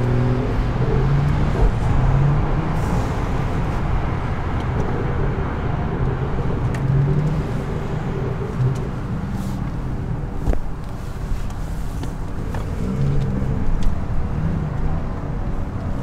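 BMW 440i's turbocharged 3.0-litre inline-six (B58) running at low revs while the car drives along, under steady road and tyre noise.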